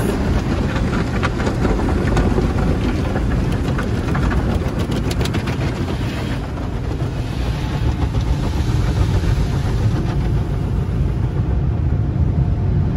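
Automatic car wash working over the car, heard from inside the cabin: a steady rush of water spray and machinery rumble, with a quick run of hits on the body for the first few seconds.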